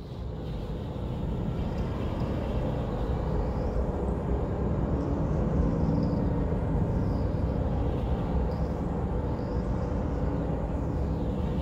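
Steady low rumbling drone that swells up in the first second and then holds, with faint high sweeping tones rising and falling over and over above it.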